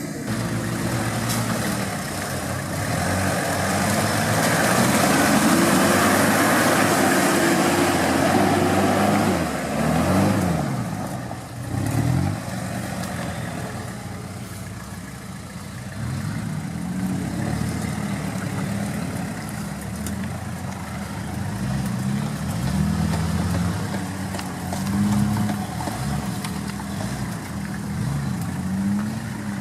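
Toyota Land Cruiser's engine working off-road, revving up and falling back again and again as the throttle is worked. It is loudest during a longer pull about four to ten seconds in.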